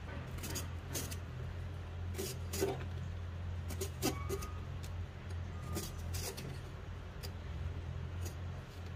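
Vegetable peeler scraping the skin off a large round eggplant: short scraping strokes at irregular intervals, about one or two a second, over a steady low hum.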